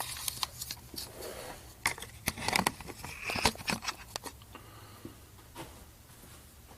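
Metal tools clinking and scraping in irregular sharp clicks, thinning out after about four seconds: a puller being fitted to the engine's harmonic balancer.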